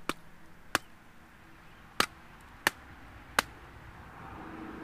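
Five sharp knocks spaced unevenly over about three and a half seconds: a deeply hooked bass being struck on the head to kill it.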